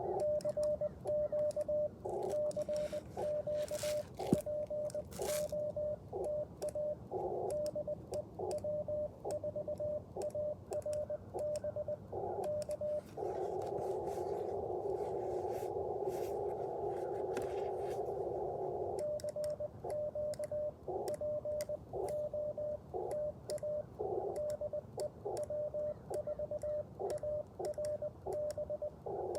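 Morse code sidetone from an Icom IC-705 transceiver: a steady single-pitched tone keyed on and off in dots and dashes by a CW paddle. Between transmissions the radio's filtered receive noise comes up as a hiss, briefly several times and for about six seconds in the middle, and a sharp click sounds about four seconds in.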